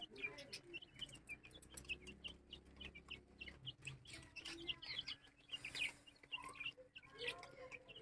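Birds chirping, with chickens clucking among them: many short, high chirps scattered throughout, fairly faint.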